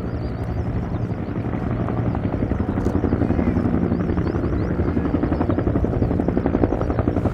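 Military helicopter flying past with a fast rotor-blade beat, growing louder about two seconds in.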